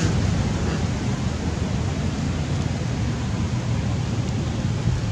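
Steady wind noise on the microphone: a flickering low rumble under an even hiss, with no animal calls.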